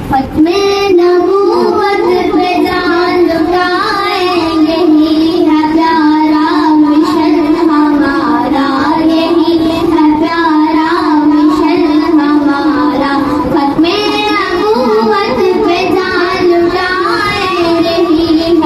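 A young girl singing an Islamic devotional song (naat) into a handheld microphone, one continuous melodic line.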